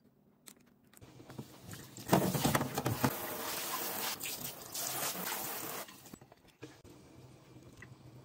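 Water running from a kitchen tap for about four seconds, with light clinks, starting about two seconds in and stopping near six seconds.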